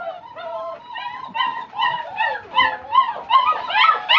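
A litter of five-week-old black German shepherd puppies whining and yelping together, many short rising-and-falling cries overlapping, growing louder over the second half. They are hungry puppies begging as their feed is being made ready.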